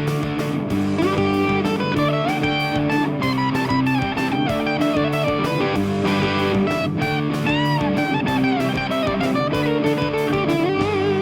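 Instrumental rock theme music: an electric guitar lead with bending notes over rhythm guitar and a steady drum beat.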